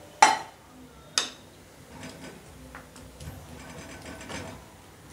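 Two sharp clinks about a second apart as a utensil knocks against a cooking pan, followed by softer clatter and scraping as jackfruit pieces in water are stirred in the pan.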